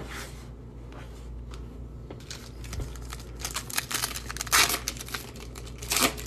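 Foil wrapper of a 2021 Panini Donruss Optic baseball card pack being torn open and crinkled. A run of crackling rips starts about two seconds in and is loudest near the middle and again just before the cards come out.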